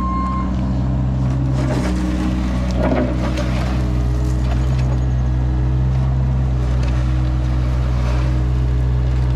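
Cat 303E mini excavator's diesel engine running steadily under load with its hydraulics working. The bucket scrapes and drags gravel and dirt along the driveway edge, most audibly in the first few seconds.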